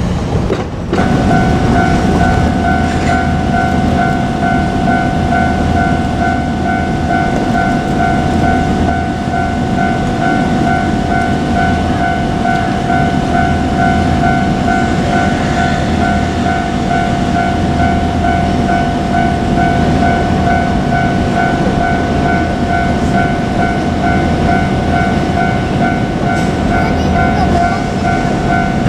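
A Japanese level-crossing alarm rings steadily as a two-tone electronic bell over the continuous rumble of a JR Kyushu 817-series electric train running on the line. The sound drops out briefly about a second in, and the bell starts there.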